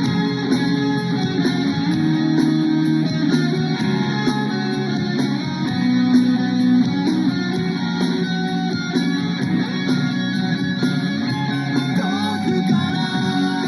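Background music: a guitar-led song with a steady drum beat, in a passage without vocals.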